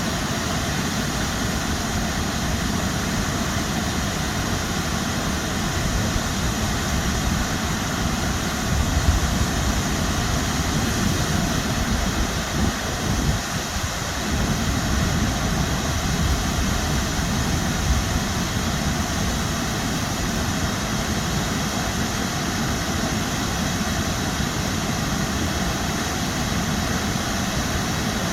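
Steady rush of a waterfall close to 50 feet high: one constant, even noise, heaviest in the low end.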